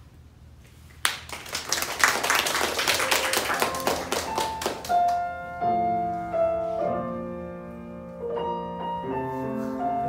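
A burst of applause breaks out about a second in and dies away after a few seconds, overlapping a grand piano that then plays a slow melody of ringing, held notes.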